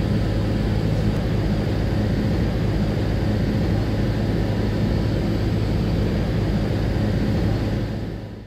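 Steady cabin noise of a Boeing 737-300 with its CFM56-3 jet engines running, a low hum under an even rush of air, heard from inside the cabin. It fades out near the end.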